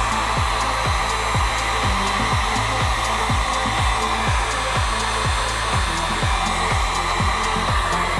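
Heat gun blowing steadily, warming an iPad's screen adhesive so the glass can be pried off. Background music runs under it with a beat of deep, falling thumps about twice a second.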